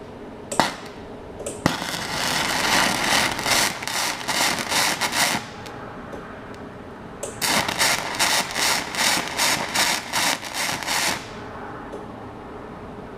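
Flux-core MIG welding arc crackling and spitting in two runs of about four seconds each, with two short pops just before the first run.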